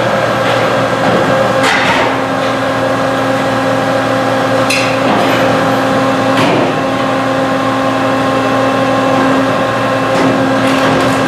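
Catalytic converter guillotine in operation: a steady machine hum with several sharp metallic impacts, about four in all, as converter shells are chopped.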